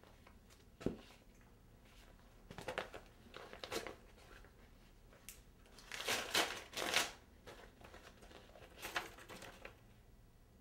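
Paper mail being handled and an envelope torn open: crinkling rustles, with the loudest rips about six to seven seconds in and more rustling near the end. A single sharp tap about a second in.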